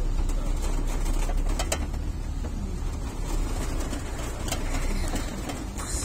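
Inside a moving car in heavy rain: a steady low rumble from the car on the road, with the hiss of rain on the body and windows. A few sharp clicks or knocks come through, about a second and a half in and again near four and a half seconds.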